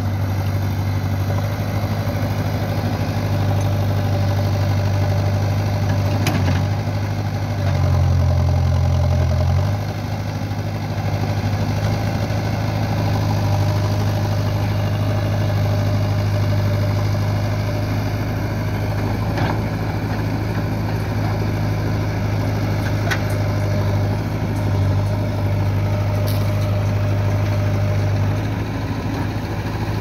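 JCB 3DX backhoe loader's diesel engine running steadily while the machine works, with a low, even hum that grows louder for about two seconds around eight seconds in. A few sharp clicks come through at scattered moments.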